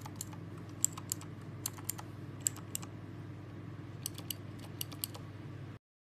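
Typing on an EGA TYPE CMK1 mechanical keyboard: irregular runs of sharp key clicks in three short flurries, over a low steady hum. The sound cuts off suddenly near the end.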